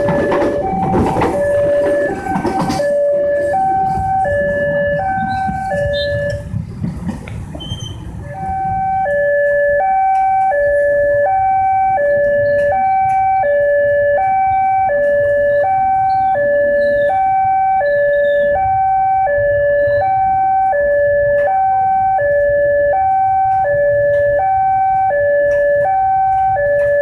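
A two-tone warning signal alternating between a high and a low note, each held about half a second, over a steady low machine rumble. Loud clattering machinery noise overlays it for the first few seconds.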